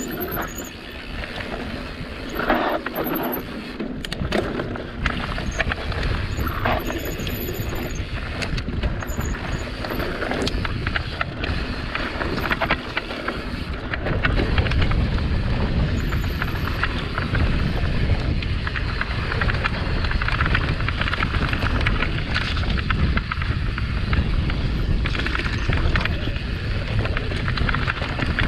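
Mountain bike descending a dirt and loose-stone trail at speed: tyres rolling over the ground, the bike rattling and knocking over bumps, with wind buffeting the microphone. The low rumble grows heavier about halfway through.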